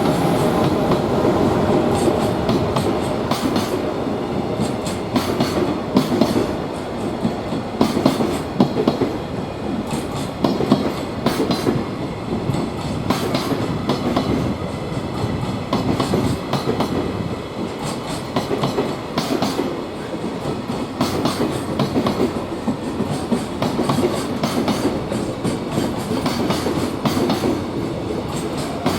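A long freight train rolling past, its wagon wheels clacking over rail joints in repeated runs of sharp clicks over a steady rumble. A few steady tones at the start fade within the first couple of seconds.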